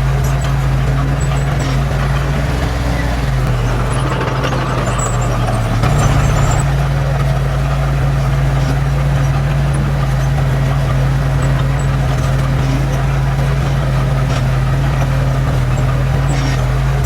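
Heavy diesel engine of earthmoving machinery running steadily under load, its note stepping up slightly about six seconds in.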